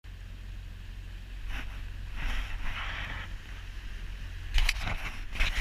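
Small motorboat under way at slow speed, heard from its bow: a steady low rumble with several short bursts of hiss, the sharpest and loudest a little after four and a half seconds in.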